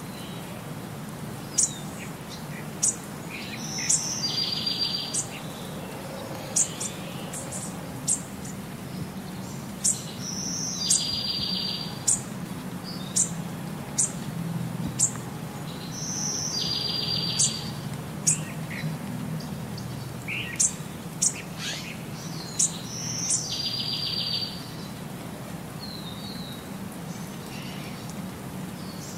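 Birdsong: short, sharp high chirps and a buzzy trilled phrase, the same pattern coming round about every six seconds, over a faint steady low hum.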